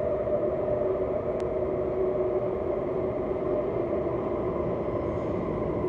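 Steady hum and rumble of an underground metro station platform, with a held drone of two tones and one faint tick about a second and a half in.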